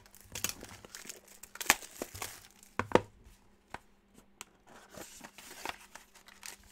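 Packaging of a Panini Court Kings trading-card box crinkling and tearing as it is opened by hand, in irregular crackles with a few sharper snaps.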